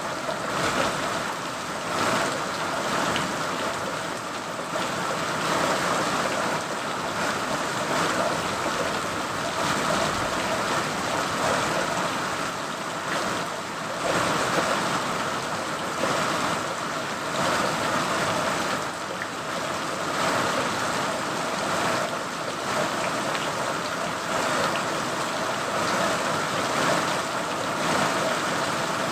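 Steady rain falling, a continuous hiss with scattered individual drops and small swells in intensity.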